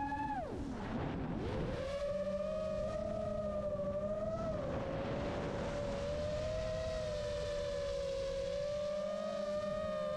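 Motors and propellers of an iFlight Chimera 7 Pro, a 7-inch FPV quadcopter, whining in flight. About half a second in, the pitch drops steeply as the throttle comes off, then climbs back within about a second and a half and holds fairly steady, wavering a little as the quad manoeuvres.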